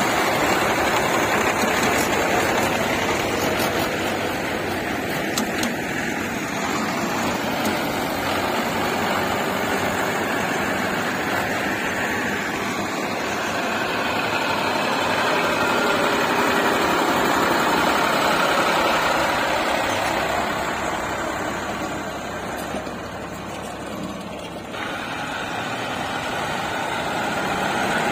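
Diesel tractor engine running, its sound swelling and easing, with a dip in level and an abrupt change near the end.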